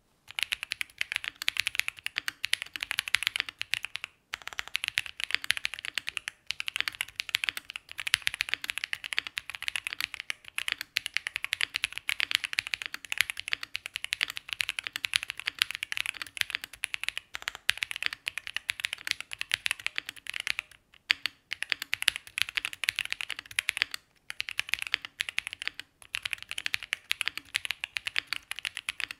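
Fast, steady typing on a Cub65 mechanical keyboard with stock, unlubed Ceptify Polar Panda switches, a polycarbonate flex-cut plate and GMK keycaps, the switches as they come from the factory. Key clicks run almost continuously, with a few brief pauses.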